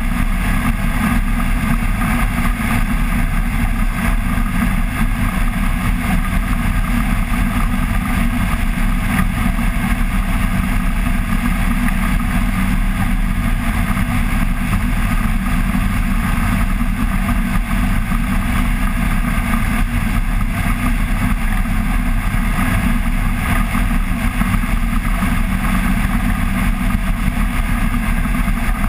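Flex-wing microlight trike's engine and pusher propeller running steadily in level flight.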